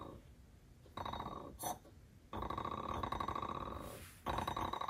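Carburetor body rocked by a finger on a granite surface plate, its flange chattering against the plate in rapid ticks, in several spells with short pauses. The rocking shows that the flange is warped.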